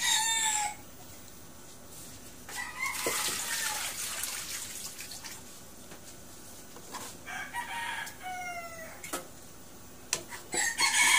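Roosters crowing repeatedly, with four long crows a few seconds apart.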